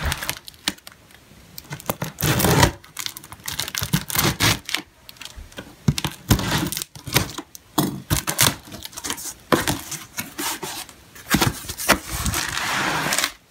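Scissors cutting and tearing through packing tape on a cardboard box, with cardboard scraping and plastic crinkling in irregular bursts, and a longer rustle near the end.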